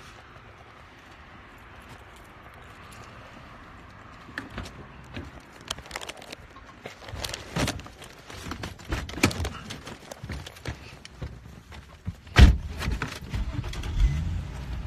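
Keys jangling with scattered clicks and knocks, then a heavy thump of a car door shutting about twelve seconds in, followed by a few more knocks.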